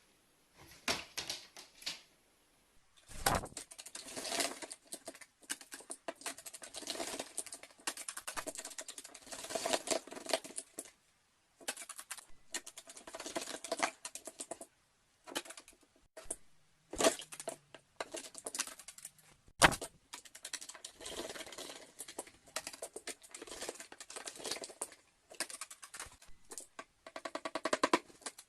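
Rapid, irregular tapping and clicking in clusters broken by short pauses, with one louder knock about two-thirds of the way through.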